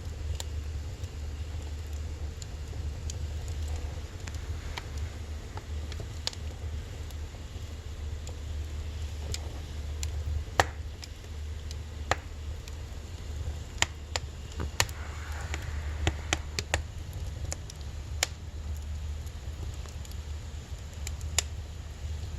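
Firewood burning in a wood stove: irregular sharp crackles and pops, the loudest about halfway through, over a steady low rumble.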